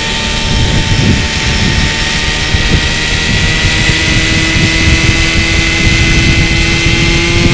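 Radio-controlled model helicopter running on the ground with its rotors spinning: a steady mechanical whine that creeps slowly up in pitch as it spools up, over a loud low rumble.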